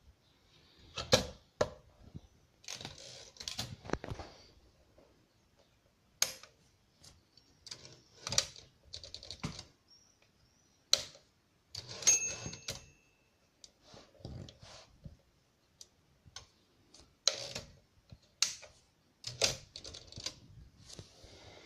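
Torpedo 18 manual typewriter mechanism clacking in irregular bursts of sharp clicks and clunks, with pauses between them. A short ring sounds about twelve seconds in.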